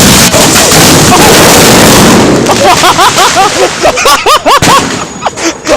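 A box of fireworks misfiring on the ground, all of it going off at once: a dense, very loud barrage of bangs and crackling. From about two and a half seconds in, many short whistles that rise and fall in pitch sound among the pops.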